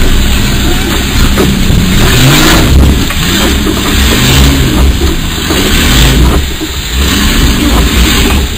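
Off-road 4x4's engine revving up and down in repeated surges under heavy load as the vehicle strains to climb a steep muddy bank and fails to get over a pipe, heard from inside the cab.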